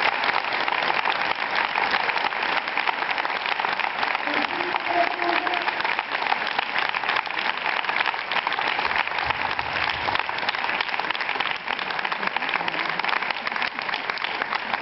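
Sustained applause from a large audience, many hands clapping in a dense, steady crackle that holds at an even level throughout.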